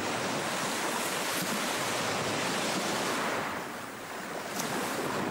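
Steady rush of sea waves, easing briefly about three and a half seconds in before picking up again.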